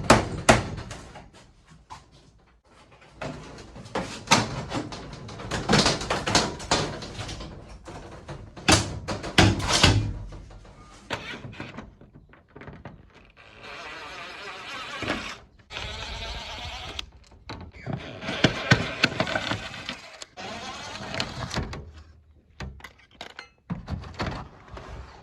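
A caravan window being worked loose and pulled from its frame: repeated knocks and thumps, with a few longer stretches of scraping and grinding.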